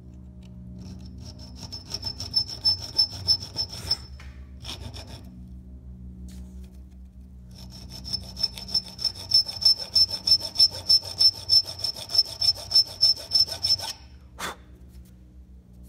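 Flat hand file rasping across the steel tip of a flathead screwdriver clamped in a vise, in quick, even back-and-forth strokes with a shrill metallic ring on each stroke. The strokes come in two runs with a pause in the middle, filing a corner off the blade. A single sharp click comes near the end.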